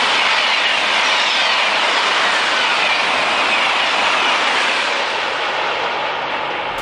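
High-speed train rushing past with a steady roar whose pitch slowly falls, easing off a little near the end.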